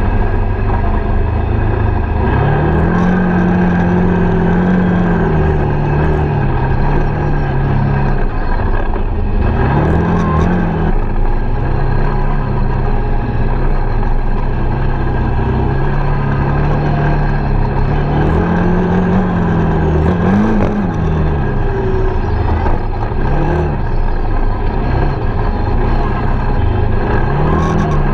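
Quad bike (ATV) engine running as it is ridden along a dirt trail, its pitch rising and falling again and again as the throttle is opened and eased off, over a steady rushing noise.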